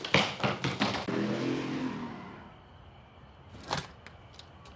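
Quick running footsteps on a hard floor. About a second in, a rushing noise with a low hum that fades away, then quiet with a single soft knock near the end.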